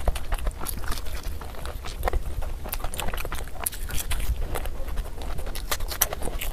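Close-miked chewing of soft puri and masala egg: wet mouth clicks and smacks coming thick and irregular over a low steady hum.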